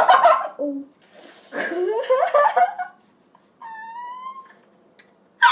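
Two boys shrieking and laughing as a raw egg is smashed and rubbed on one boy's head, then a single steady high-pitched squeal about four seconds in.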